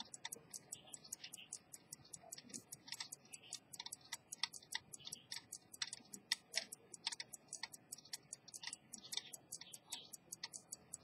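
Mechanical pocket watch movement ticking: the lever escapement gives rapid, even, faint ticks at about five a second.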